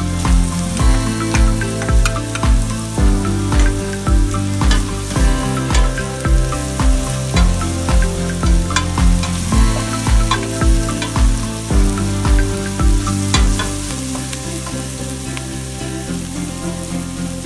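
Background music with a steady beat that drops out near the end, over minced onion sizzling in oil and butter in a stainless steel pot as it is stirred with a wooden spoon.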